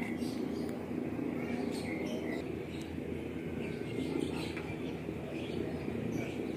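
Dry eggshells crackling as a hand presses them down into a glass blender jar, with short bird chirps and a steady low hum behind.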